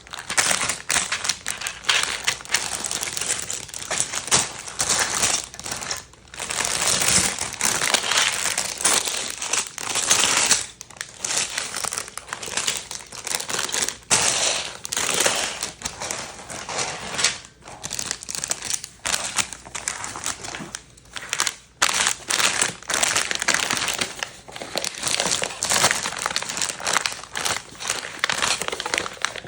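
Plastic packaging crinkling and rustling as it is handled, in uneven bursts with scattered sharp clicks and a few short pauses.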